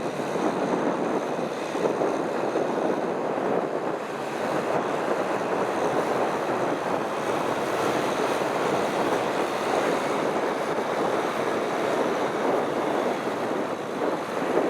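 Kubota M6040SU tractor engine running steadily under load while plowing wet paddy mud, heard as a constant noisy rumble with water and mud churning.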